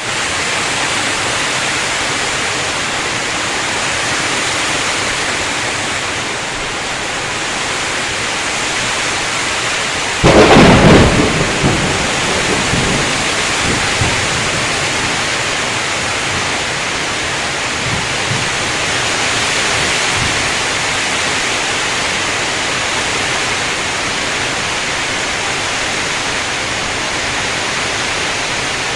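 Heavy rain pouring steadily, with a sudden loud thunderclap about ten seconds in that rumbles away over the next few seconds.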